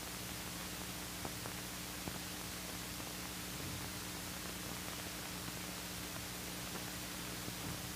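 Steady hiss with a low electrical hum underneath: the background noise of an old film soundtrack, with a couple of faint ticks.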